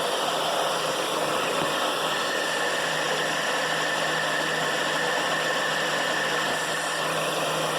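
2008 Dodge Caliber's 2.0-litre four-cylinder engine idling, heard close at the accessory belt and pulleys: a steady hum with a faint high whine from about two seconds in. This is the unidentified belt-drive noise that is still there despite a replaced alternator and two new idler pulleys.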